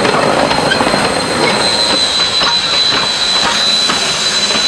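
NZR JA class steam locomotive and tender rolling past close by: steady running noise with wheels clicking over the rail joints and a steady high-pitched squeal.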